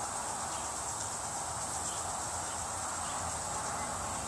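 Steady, even insect buzzing, high-pitched, with a low hum underneath.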